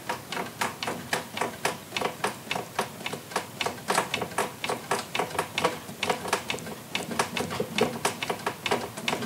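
Rapid, even clicking and knocking, about four a second, as the DIY CNC router's Z-axis carriage is rocked back and forth by hand. The thin steel plate linking the X-axis lead-screw anti-backlash nut to the Z-axis flexes and knocks with play, showing that its force transfer is too weak.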